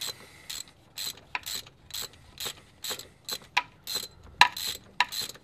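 Ratchet wrench clicking in short strokes, about two a second, as a spark plug is turned on a Volvo redblock four-cylinder engine.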